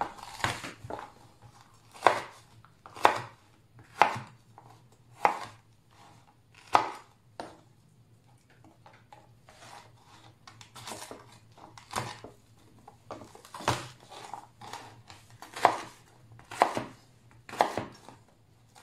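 Chef's knife chopping red bell pepper on a wooden cutting board: sharp knocks of the blade striking the board, roughly one a second and unevenly spaced, with a quieter stretch of a few seconds partway through.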